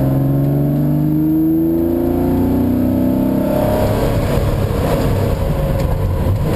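Porsche 912 rally car's engine heard from inside the cabin, pulling hard with its note rising for about four seconds as the car accelerates. The note then turns rougher and unsteady.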